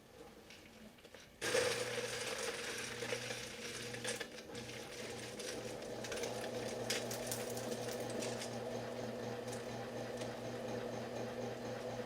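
A 1971 Hunter ceiling fan motor, unused for 18 years, comes on abruptly about a second and a half in. It then runs with a steady electrical hum and a regular throb, with scattered ticks over the whirr.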